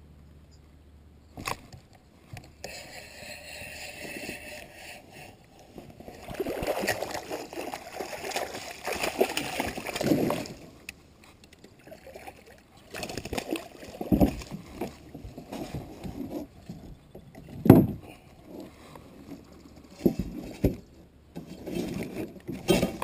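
Handling noise from someone moving and working with gear in a plastic fishing kayak: a rough scraping and rustling stretch a few seconds in, then scattered sharp knocks, the loudest about two-thirds of the way through.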